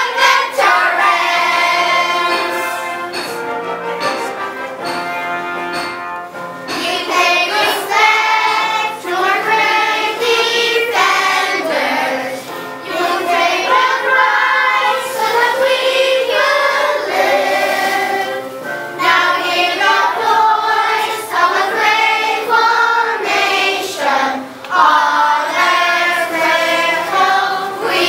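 A children's choir singing a song together, in held phrases with short breaks between them.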